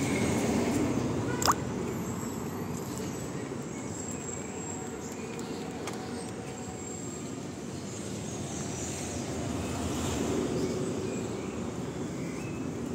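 City street ambience with car traffic running steadily, swelling as a vehicle passes about ten seconds in. A single sharp click sounds about a second and a half in.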